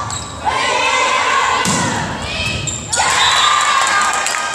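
Volleyball rally in a gym: thuds of the ball being hit, with bursts of high-pitched shouting and cheering from the players about half a second in and again at about three seconds.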